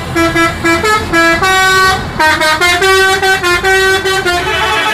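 Tour bus's multi-tone musical air horn (the Indonesian "telolet" horn) playing a tune, its pitch stepping from note to note several times a second.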